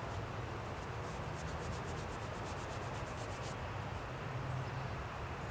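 Paintbrush bristles rubbing paint onto a wooden board in a quick run of short scratchy strokes from about a second in until past the middle, over a steady low hum.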